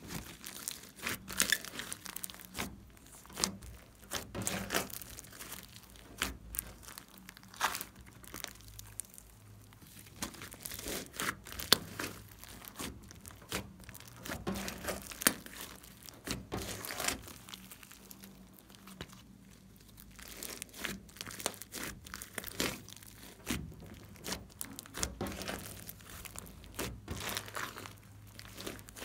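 Hands squeezing and kneading a big lump of slime mixed with foam beads, giving dense, irregular sticky crackles and pops.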